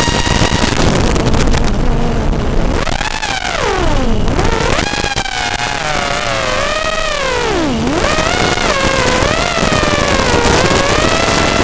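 FPV freestyle quadcopter's brushless motors whining, their pitch sliding up and down with the throttle, dropping steeply twice, about four and about eight seconds in, as the throttle is chopped and then picking back up. A steady rushing noise runs underneath.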